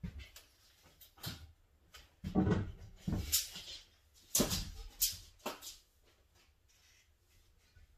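Irregular wooden knocks and clunks of 2x4 cabinet framing being handled and fitted, several sharp hits in the first six seconds, then it goes quiet.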